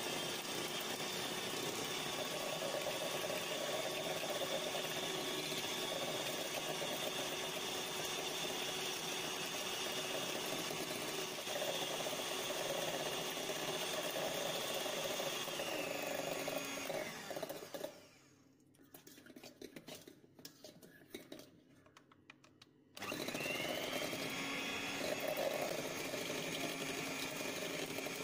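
Electric hand mixer running steadily, its twin beaters whipping instant coffee, sugar and hot water into dalgona cream in a steel bowl. About seventeen seconds in the motor winds down and stops, a few faint knocks follow, and some five seconds later it starts again with a rising whine.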